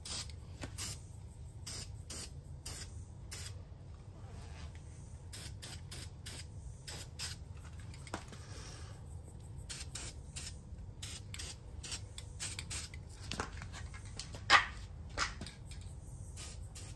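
Car-interior cleaning work: a run of short, irregular hissing strokes, like spraying or scrubbing, over a low steady hum, with a couple of louder clicks near the end.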